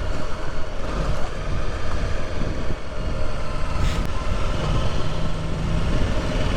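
Motorcycle engine running under way, with rumbling wind noise on the microphone; the engine tone steadies briefly about two-thirds of the way through.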